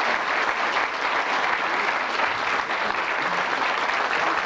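Large audience applauding, a steady dense patter of many hands clapping.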